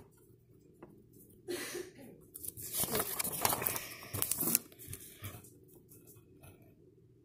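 Rustling and rubbing noise from a hand working close to the microphone, in two bursts: a short one about a second and a half in, then a longer, rougher one of about two seconds.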